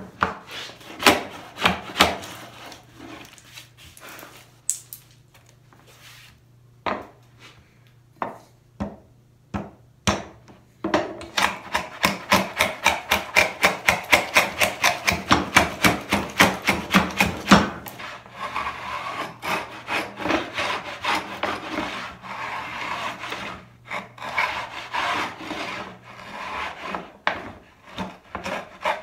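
Hand router plane cutting a rabbet in a walnut board, taking it down to depth with short scraping strokes. The strokes are spaced out at first, then come in a fast, even run of about three a second through the middle, then turn into denser, choppier shaving. A faint steady hum lies underneath.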